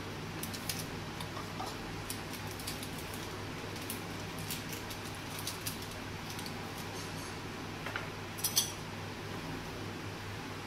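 Mustard oil heating in an aluminium kadai over a gas burner: scattered faint crackles over a low steady hum, with a short louder cluster of crackles near the end.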